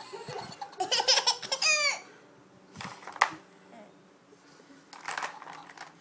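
A baby giggling: a short run of laughs about a second in, falling in pitch at the end, followed by a single sharp click and a brief rustle.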